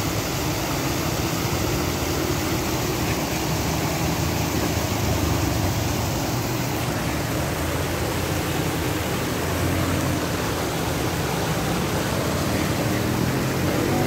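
Water pouring over a small weir into a pool, a steady rushing splash.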